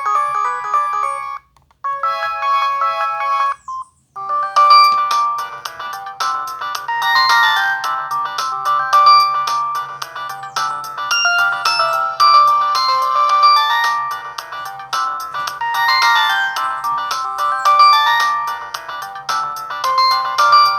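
Samsung SGH-T459 Gravity phone playing its stock ringtones in turn: one ends about a second in, a short melody follows, and after a brief gap a longer, busier tune starts about four seconds in.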